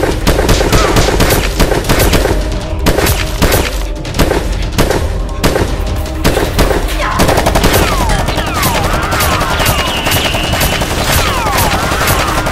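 Rapid bursts of automatic gunfire sound effects, dubbed over toy-blaster action, over background action music. Falling whistle-like effects come in during the second half.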